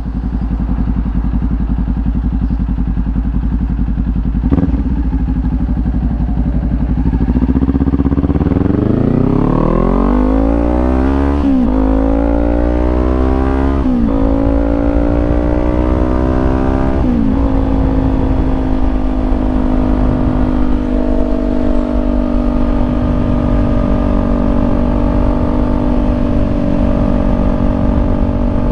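Kawasaki Ninja 400 parallel-twin engine through a Leo Vince slip-on exhaust. It runs steadily at low revs, then from about seven seconds in accelerates hard, rising in pitch and dropping sharply at each of three upshifts, before settling into a steady cruise.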